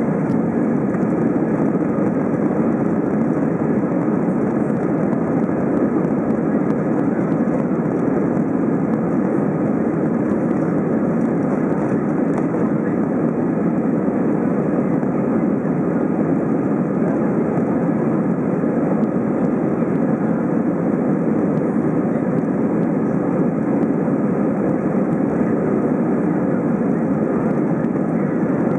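Airbus A320 on its takeoff roll, heard from inside the cabin: the two jet engines running at takeoff thrust, together with the rush of the runway under the wheels, as one steady, loud noise.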